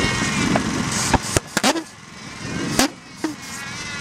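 Control-line model pulse jet engine being started: a rough buzz broken by a quick string of sharp pops about a second in, another pop near the end, then the buzz picks up again as it tries to catch.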